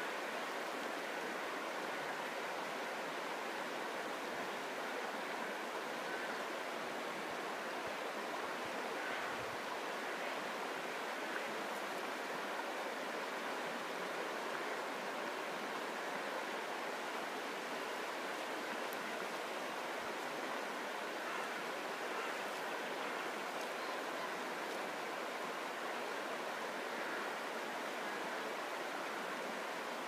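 Shallow river flowing over stones and around a line of stepping stones: a steady, even rushing of water.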